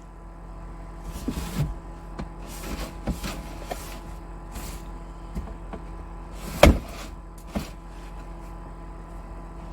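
Short bursts of a cordless drill driving screws to mount a shelf bracket, with handling noise and one sharp knock about two-thirds of the way through.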